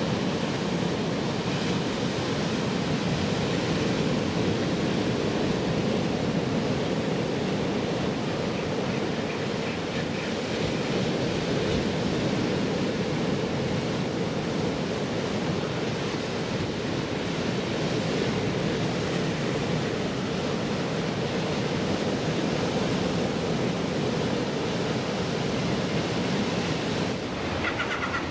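Sea surf breaking and washing over a flat rock platform and boulders: a steady rushing wash of waves.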